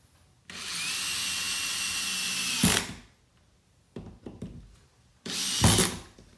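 Power drill driving a drywall screw through a metal wall track into a wood stud: a steady run of about two seconds that ends in a sharp knock, then a shorter run of under a second near the end.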